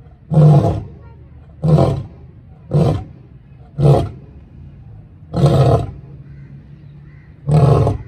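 White lion roaring: six short, loud calls in a series, about one to two seconds apart, the gaps growing longer toward the end.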